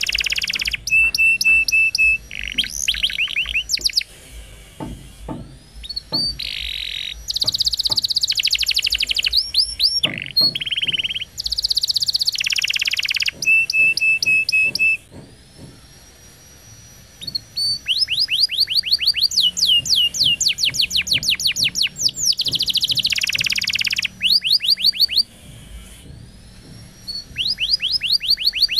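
Domestic canary singing a long song: fast trills of repeated swooping notes, buzzy rolls and a held steady whistle, broken by short pauses about four, fifteen and twenty-five seconds in.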